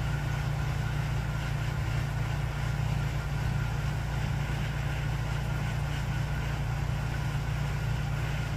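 Domestic cat purring: a steady low rumble that runs without a break.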